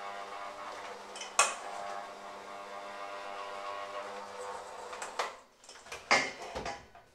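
Handheld electric mixer running steadily with its beaters in a stainless-steel bowl, with one sharp knock of metal on the bowl about a second in. The motor cuts off about five seconds in, followed by a few knocks and clatters against the bowl.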